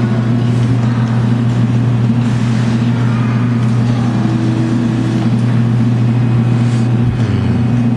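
Steady, loud low hum of arcade claw-machine surroundings, with a faint haze of background noise over it.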